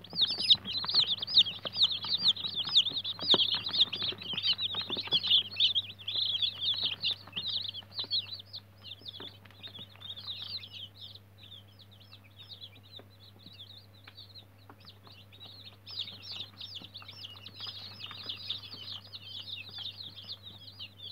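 A tub full of newly hatched chicks peeping together: a dense chorus of short, high, falling cheeps that thins out in the middle and picks up again towards the end. Scratching and tapping come through the first few seconds, over a low steady hum.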